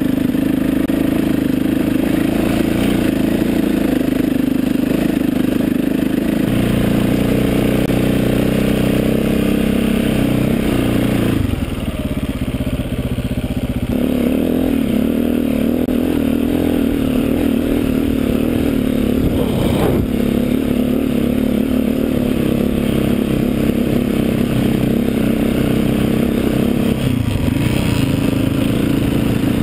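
KTM trail bike's engine running while it is ridden over rough grassy ground, heard close from the bike itself. The engine note drops back for about two seconds near the middle, then picks up again.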